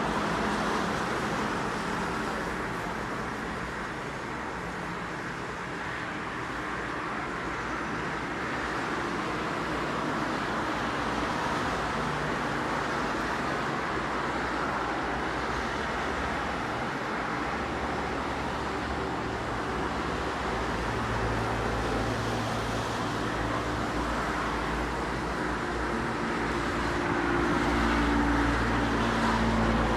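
Airbus A330 airliner's jet engines running: a steady rushing noise with a low hum that builds from about twenty seconds in, growing louder near the end as the engines power up for takeoff.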